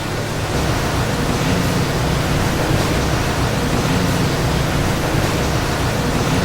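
Heavy rain falling steadily on the old prison building, a continuous noisy hiss.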